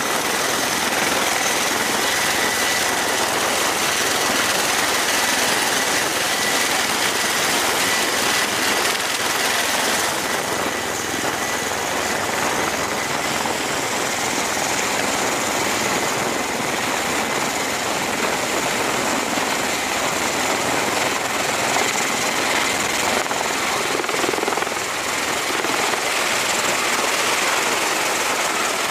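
CMV-22B Osprey tiltrotor, its twin turboshaft engines and proprotors running at high power as it lifts off the flight deck and climbs away. A loud, steady rotor and turbine noise, with a faint high whine that fades about ten seconds in.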